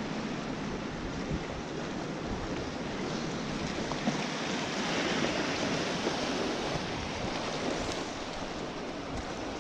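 Steady rush of waves and current washing against the rocks of an inlet jetty, swelling a little about halfway through.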